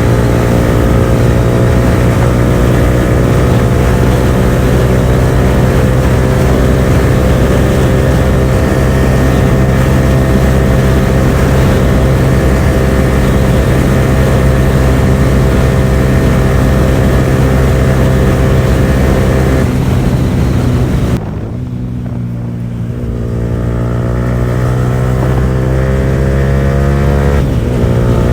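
Yamaha R15 V4's single-cylinder engine, breathing through an R9 aftermarket exhaust, running hard at a steady high pitch at speed. About 21 seconds in the sound drops suddenly as the throttle comes off, then the pitch climbs steadily as the bike pulls again, with a brief break near the end.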